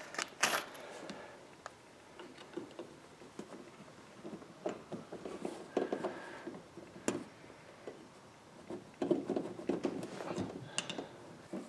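Scattered small clicks and taps of pop rivets being pushed by hand into the holes of a plastic Scotty rod holder base, with soft handling noise from fingers on the mount.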